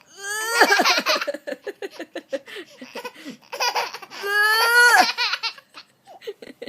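Small child laughing in a run of quick bursts, with a long high-pitched laugh about four seconds in.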